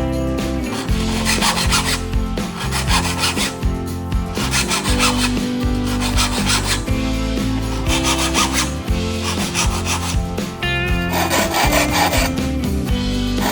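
Hand saw cutting wood in repeated strokes, each rasping stroke lasting about a second, over background music.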